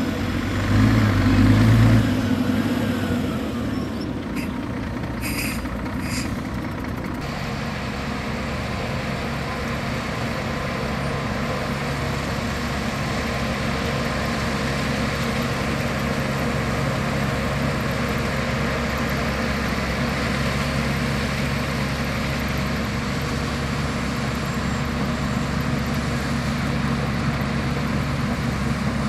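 Heavy diesel engine of earthmoving machinery running steadily, louder for the first couple of seconds. A few brief high-pitched squeals or beeps come around five seconds in.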